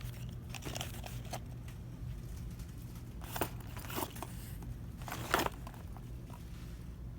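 Plastic packaging crinkling in several short bursts, the loudest a little past the middle, as merchandise is handled. A steady low hum runs underneath.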